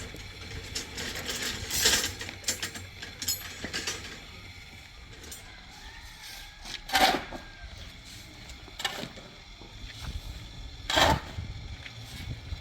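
Scattered knocks and clicks of hard objects being handled. Three louder knocks come about two, seven and eleven seconds in.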